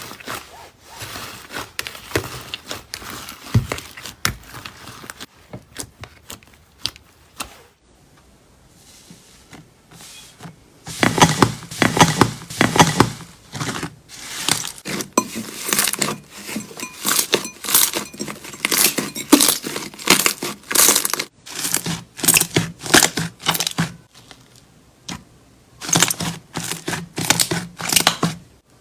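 Slime being squeezed, pressed and stretched by hand, giving dense runs of crackling and popping clicks that ease off for a couple of seconds about a third of the way in.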